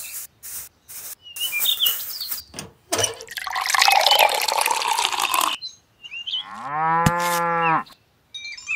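Light taps and scrapes as cement is worked onto miniature bricks, then water poured from a small metal pot splashing into a miniature brick tank for about two and a half seconds. Near the end a cow moos once for under two seconds.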